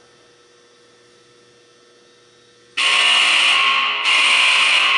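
Faint steady electrical hum, then nearly three seconds in a loud warning horn on the high-voltage rig starts sounding in blasts of about a second and a quarter with short gaps between.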